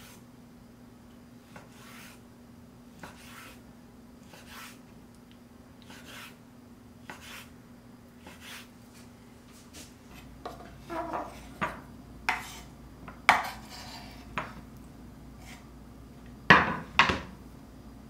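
Chef's knife slicing raw salmon on a wooden cutting board: soft strokes about once a second, then sharper knocks of the blade on the board as the fish is cubed, with two loud knocks near the end.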